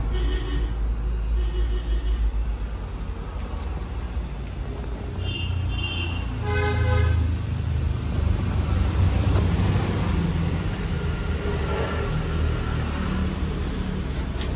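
Steady rumble of road traffic with several short vehicle horn toots, the loudest about seven seconds in.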